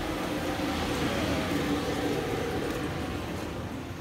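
Steady hum and hiss of a small restaurant kitchen's equipment, with no distinct knocks or clatter.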